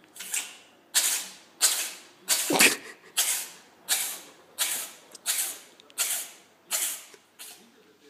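Domestic cat sneezing over and over in a rapid, evenly spaced run of about a dozen sharp sneezes, roughly one and a half a second, the loudest about two and a half seconds in. The cat is unwell.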